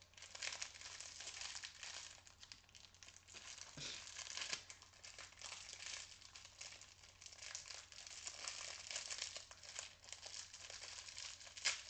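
Small plastic packet crinkling and crackling as it is handled and opened by hand to get at a pair of earrings: a continuous run of fine, irregular crackles.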